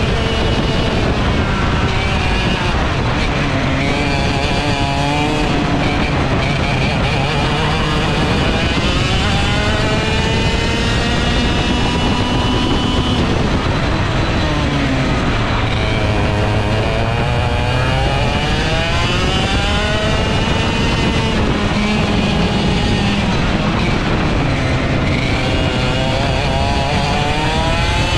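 Onboard sound of a ROK GP 125cc two-stroke TaG kart engine racing hard. Its pitch climbs along the straights and drops away as it slows for corners, over and over, with a second engine note overlapping at times.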